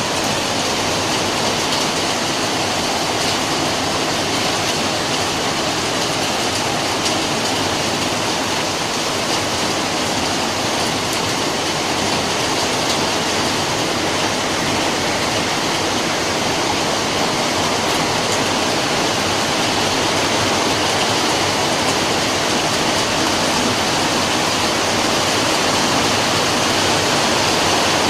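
Heavy rain falling steadily: a dense, even rush of water noise that grows slightly louder toward the end.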